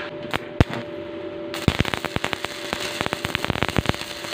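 Stick welding arc crackling and popping as an electrode welds a cylindrical hinge onto a steel tube. A few separate pops in the first second and a half, then a dense, irregular crackle.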